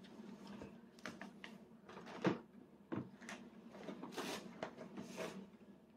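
Faint, scattered knocks and clicks of a spoon against a plastic divided plate as a toddler eats rice, with a couple of soft hissing noises near the end.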